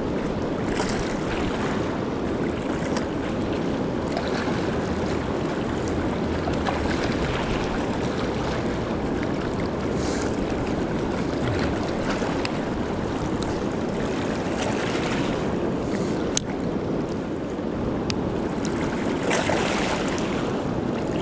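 Steady rush of fast river current running over rapids.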